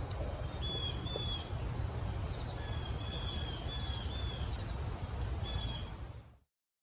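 Outdoor ambience with birds calling in short, repeated whistled notes and high chips over a steady high insect trill and a low rumble. It all fades out near the end.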